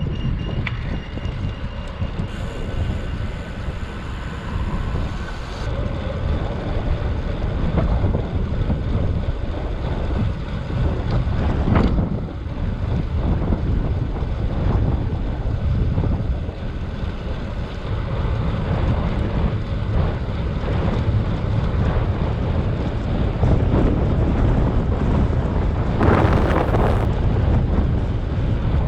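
Wind rushing over the microphone of a bicycle being ridden, a steady low rumble. There is a sharp click about twelve seconds in and a brief louder hiss near the end.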